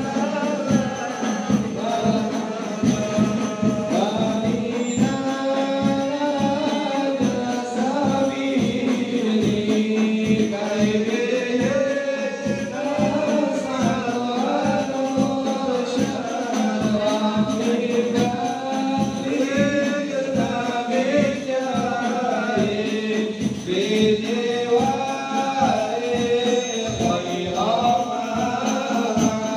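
Men's voices singing an Islamic devotional chant (shalawat) together, a lead voice on a microphone, over a steady drum beat.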